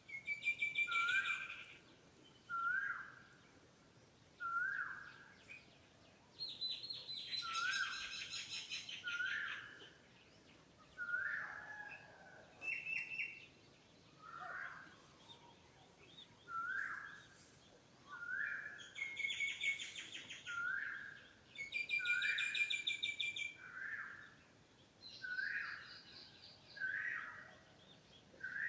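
Birds calling: one bird repeats a short, upward-hooked call about every two seconds, while louder rapid trills break in several times, each lasting one to three seconds.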